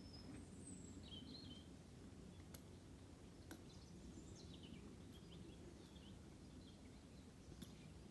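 Near-silent outdoor ambience with faint small birds chirping now and then, and a few faint ticks.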